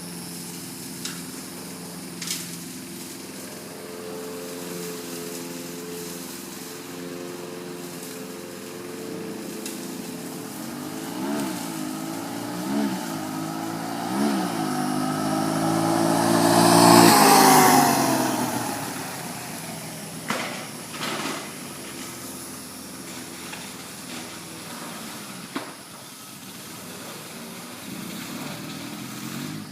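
A freshly rebuilt Honda TR200 Fat Cat's single-cylinder four-stroke engine running, blipped up and down three times. It then swells over a few seconds to its loudest and falls away again as the ATV is driven. A few sharp clicks follow shortly after.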